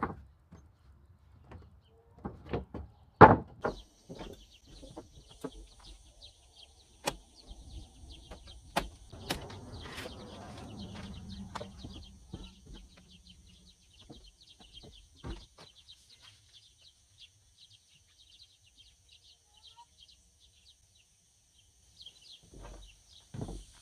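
Scattered wooden knocks and clunks of lumber being handled while framing the chicken run, the loudest about three seconds in. Small birds chirp continuously in the background from about four seconds in.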